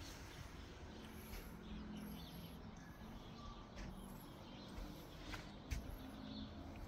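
Faint outdoor background with a low steady rumble and the odd distant bird chirp, and two light clicks about five and a half seconds in.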